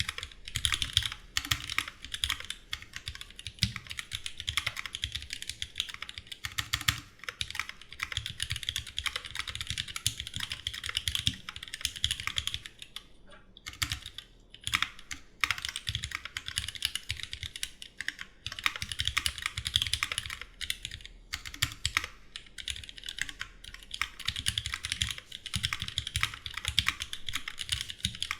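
Steady fast typing on a Duck Jetfire mechanical keyboard with rebuilt vintage Cherry MX Black linear switches, lubed and filmed, under GMK keycaps: a continuous stream of keystrokes, with a brief pause about halfway through.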